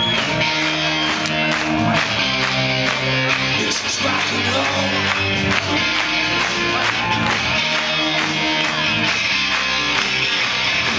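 Live rock-and-roll band playing loud through a club PA, heard from the audience: electric guitars, bass and drums on a steady beat, with the singer's voice coming in at times.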